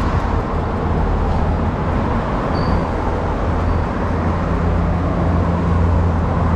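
Street traffic: a steady rumble of passing and idling vehicles with a low engine drone underneath, which grows a deeper second tone about four seconds in.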